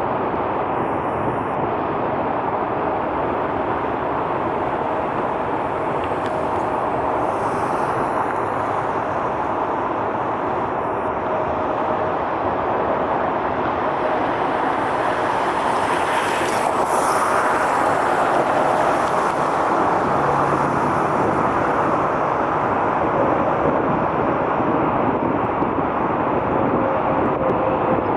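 Jet aircraft engines running, a steady rush of noise with faint whining tones, swelling slightly about halfway through.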